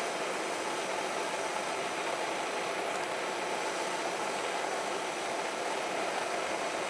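Handheld gas torch burning with a steady hiss as its flame heats a utility knife blade.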